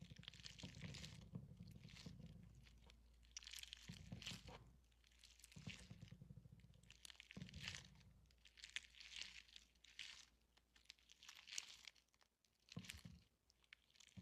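Slime being squished, giving quiet bursts of crackling and small pops as air bubbles in it burst, a burst every second or two.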